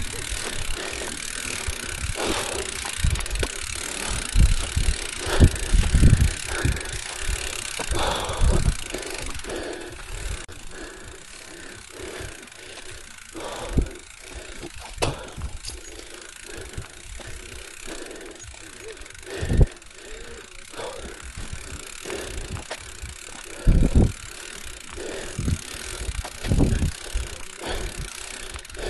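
Bicycle riding along a dirt trail: a steady rush of wind and tyre noise, broken by irregular low thumps and rattles as the bike goes over bumps.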